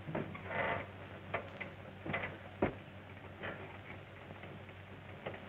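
A few scattered knocks and short scuffs as men clamber into an open touring car, the sharpest knock about two and a half seconds in, over the steady hum of an old film soundtrack.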